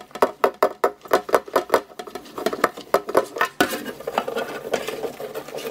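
A rough-sided scouring sponge with dish soap scrubbed hard over a Yamada single-handled wrought-iron wok, in quick back-and-forth strokes of about five a second. After about three and a half seconds the strokes blur into steady rubbing. The scrubbing washes off the wok's factory coating before it is seasoned.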